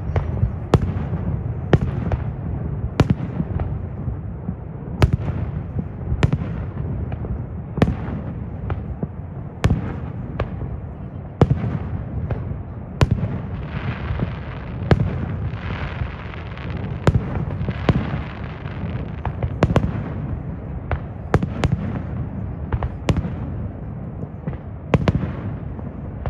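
Aerial fireworks exploding in a steady run of sharp bangs, about one to two a second, over a continuous low rumble, with a stretch of crackling about halfway through.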